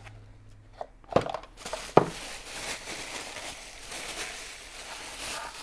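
Packaging being handled while an iron is unboxed: two sharp knocks, then a few seconds of continuous rustling and crinkling.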